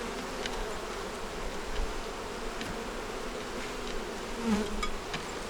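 Honey bees buzzing around an open hive, a steady wavering hum with a few faint ticks. The buzz swells briefly about four and a half seconds in.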